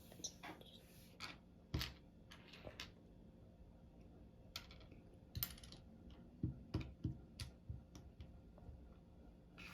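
Small plastic building bricks being handled and pressed together: scattered sharp clicks and taps at an uneven pace, a few louder ones about two seconds in and around six to seven seconds in.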